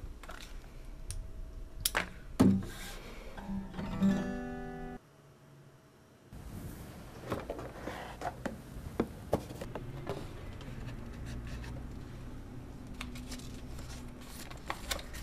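Acoustic guitar being plucked and strummed for about five seconds, then cutting off suddenly. After a brief near-silent gap, a steady room hiss with scattered light clicks and rustles.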